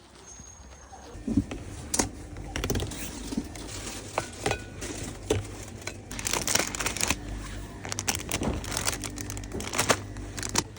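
Crinkling and rustling of something being handled, with irregular light clicks and knocks, busiest in the second half.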